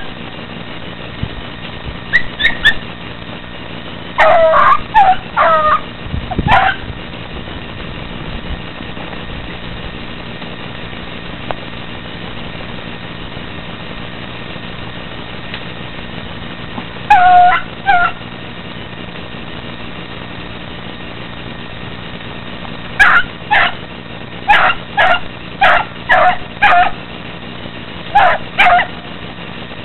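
Hound puppies barking and yelping on the chase of a hare: short calls that drop in pitch at the end, coming in bursts, a run of four or five early, two in the middle and about nine near the end. A steady low hum runs underneath.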